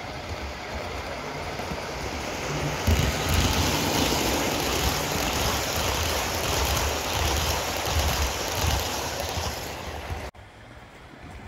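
Large-scale garden model train of passenger coaches running past on outdoor track: a steady rumble of wheels on the rails that swells about three seconds in as the coaches come close, then cuts off suddenly near the end.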